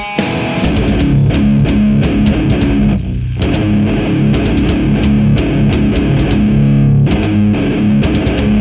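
Instrumental music: electric guitar playing over a drum backing track, with steady drum and cymbal hits and a short break in the guitar about three seconds in.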